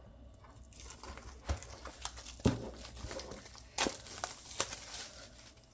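Packaging crinkling and rustling as it is worked open by hand, with a few sharp clicks along the way.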